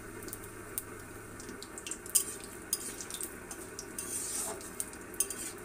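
Cumin seeds, bay leaves and dried red chillies sizzling in hot oil in an iron kadai, with scattered sharp crackles and pops: whole spices being tempered.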